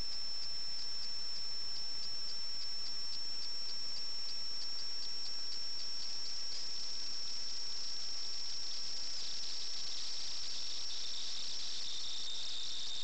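A steady high-pitched whine over a constant hiss, broken by brief dropouts about four times a second at first; a second, lower whine joins near the end.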